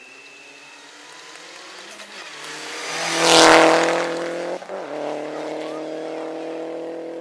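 Peugeot hatchback rally car approaching at speed and passing close by, its engine loudest about three and a half seconds in. The engine note breaks briefly about a second later, then holds steady as the car pulls away.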